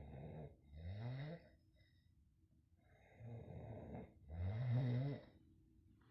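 A person snoring in their sleep. A louder snore comes about a second in and rises in pitch; a softer breath comes around three seconds, then the loudest snore follows about a second later.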